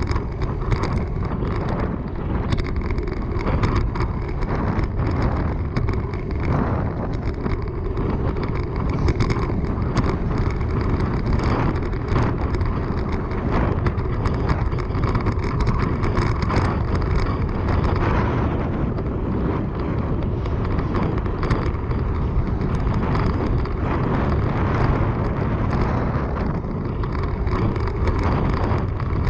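Steady rush of wind buffeting the microphone, with tyre and road noise from a bicycle ridden at speed.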